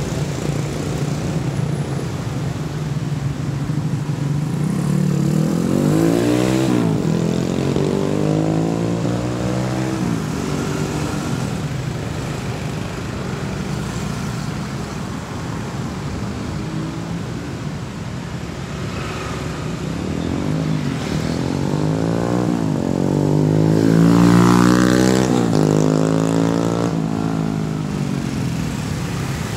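Busy city street traffic, mostly small motorcycles and scooters with some cars, running past steadily, each engine rising and falling in pitch as it goes by. The traffic swells twice, loudest about three-quarters of the way through as a vehicle passes close.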